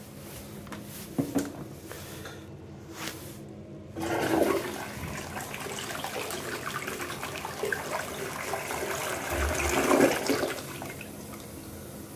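Toto toilet flushing: a short clatter about a second in, then water rushing into the bowl starts suddenly about four seconds in. It swirls and grows to its loudest about ten seconds in, then falls away to a quieter trickle as the bowl drains and refills.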